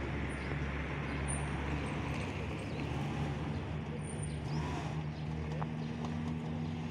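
4x4 SUV engine running under load as it climbs a muddy slope, its note rising slightly partway through.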